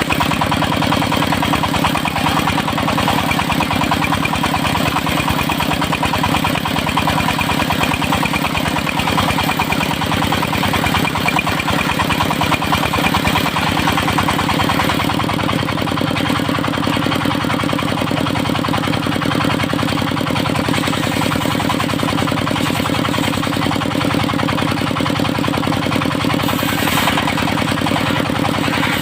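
Engine of a portable circular sawmill running steadily, with its note shifting slightly about halfway through.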